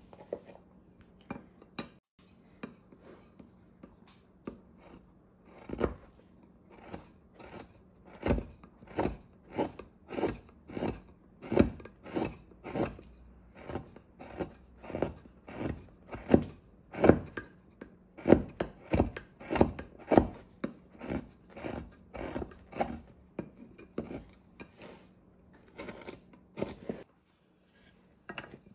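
Carving gouge pushed by hand through hard wild cherry wood, each stroke a short crisp cut as a chip comes away. The cuts are sparse and faint for the first few seconds, then come steadily at about two a second.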